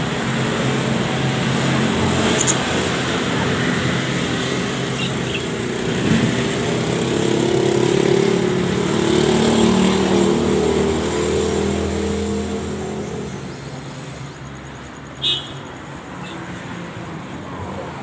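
Engine of a passing motor vehicle, growing louder to a peak about halfway through and then fading, over a steady rushing background. A brief sharp sound about fifteen seconds in.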